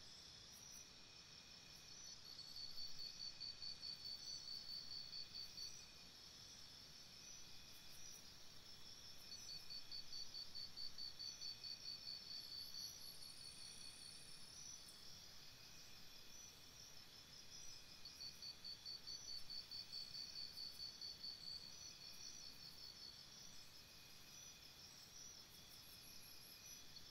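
Faint crickets trilling: high, evenly pulsed trills a few seconds long that come and go over a steady hiss.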